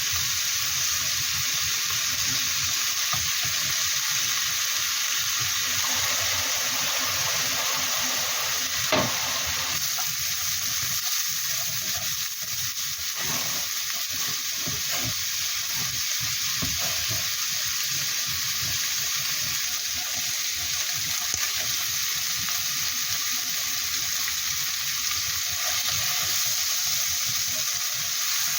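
Food sizzling steadily in a frying pan while being stir-fried, with frequent scrapes and knocks of the utensil against the pan; one sharper knock about nine seconds in.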